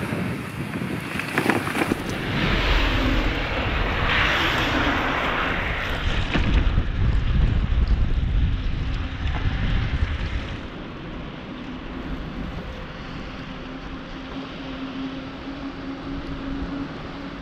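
Wind buffeting the microphone and wet tyre noise from a bicycle riding on a slushy, wet road. The wind rumble is strongest in the first half and falls away about ten seconds in, leaving a fainter steady hum.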